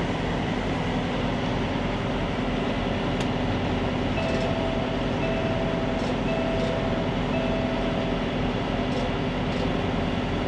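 Steady drone of the trailer's reefer unit engine running in continuous mode, charging the truck's flat batteries through jumper cables. Four short, evenly spaced electronic beeps sound in the middle.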